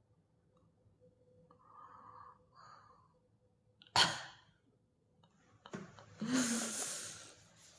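A person's breath sounds: a short, sharp burst of breath about four seconds in, then a long breathy sigh near the end.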